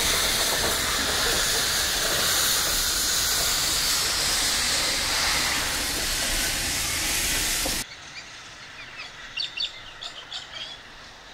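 Loud, steady hiss of steam venting from the cylinder drain cocks of Victorian Railways J class 2-8-0 steam locomotive J549 as it moves slowly. The hiss cuts off abruptly about eight seconds in, leaving much quieter outdoor sound with a few short high chirps.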